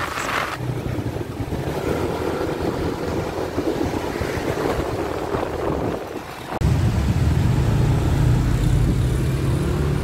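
Motor scooter running in city traffic, its engine mixed with the noise of surrounding cars and motorbikes. About two-thirds of the way through the sound jumps suddenly to a louder, deeper steady engine drone.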